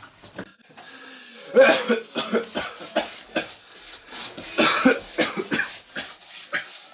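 A person coughing repeatedly in short bursts, loudest about a second and a half and again about four and a half seconds in.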